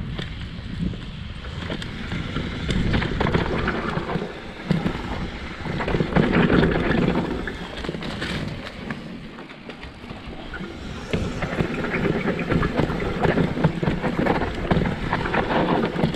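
Mountain bike running down a downhill trail: tyres rolling over the ground and the bike clattering over bumps in quick short knocks, with wind buffeting the microphone. The loudness swells and dips with the terrain.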